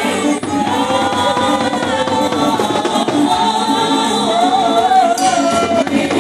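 Live gospel praise singing: a lead voice on a microphone through loudspeakers, with other voices singing along in held, wavering notes.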